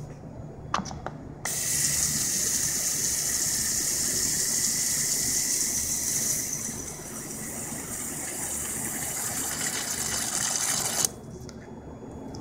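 Water rushing through a forklift battery watering gun into a cell, a steady hissing gush. It starts suddenly about a second in, eases a little halfway through, and cuts off abruptly near the end.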